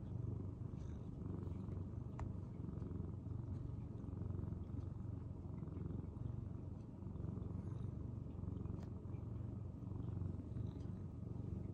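Tabby cat purring steadily, a low continuous purr that swells and eases slightly.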